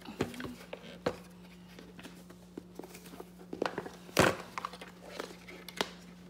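Handling noise from a Dash Express griddle being turned over and tried for its latch: scattered clicks and taps on its plastic shell, with one louder knock about four seconds in.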